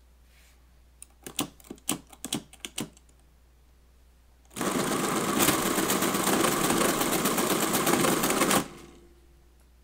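Friden STW10 mechanical calculator: a quick run of key clicks as a number is keyed in, then about four seconds of its motor-driven mechanism running through a calculation in a fast, even clatter that stops suddenly.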